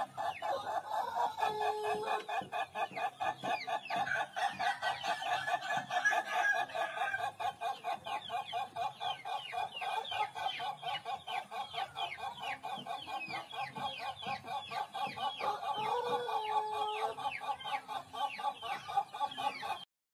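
Ayam ketawa (Indonesian 'laughing chicken') rooster crowing: a long, rapid run of short cackling notes, about five a second, like laughter. The run goes on without a break until it cuts off suddenly near the end.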